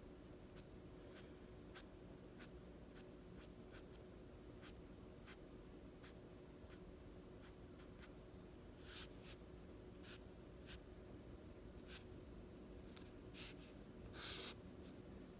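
Faint strokes of a drawing tool on paper: short irregular taps and scratches, with a couple of longer scratchy strokes about nine seconds in and near the end, over a steady faint hum.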